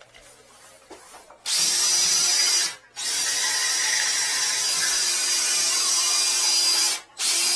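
Power drill spinning a flex-shaft drain-cleaning cable inside a clogged sink drain pipe, with a steady motor whine. It runs about a second, stops briefly, runs about four seconds, then gives a short final burst.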